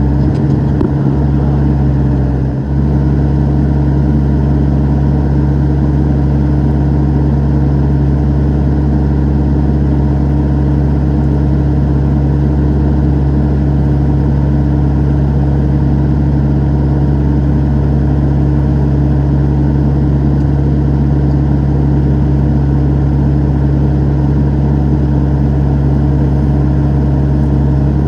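Excavator's diesel engine running steadily at a constant speed, with a brief dip in level a couple of seconds in.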